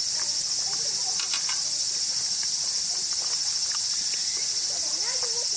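Steady high-pitched chorus of insects, crickets among them, trilling without a break.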